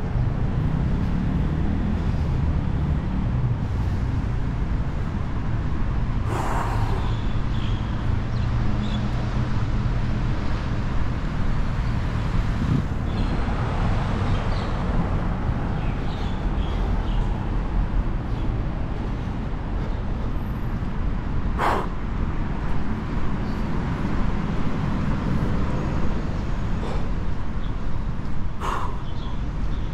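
Steady road traffic noise of vehicles running by, with an engine note held low down for the first dozen seconds. Three brief sharp sounds come about six, twenty-two and twenty-nine seconds in.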